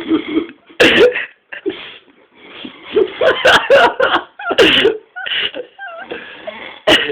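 Men's non-word throat and voice noises in short bursts: grunts, throaty murmurs and wavering vocal sounds, with a few sharp clicks.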